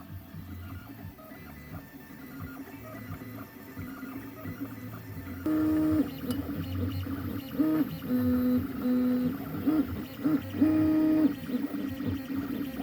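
Anet A8 3D printer's stepper motors running through a print. At first there is a quieter busy chatter. From about halfway it gives way to louder steady whining tones that jump between a few pitches as the print head changes moves.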